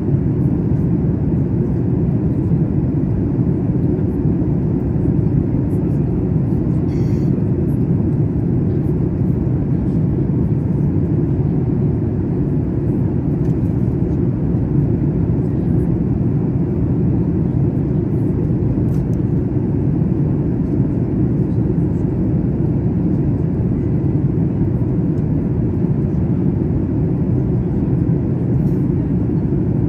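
Steady jet cabin noise inside a Boeing 737 in flight: an even, unchanging low rumble of engines and airflow.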